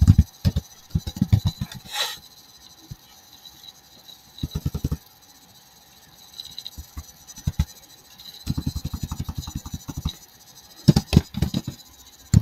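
Computer keyboard typing in quick runs of keystrokes with short pauses between them, and one sharper click about two seconds in.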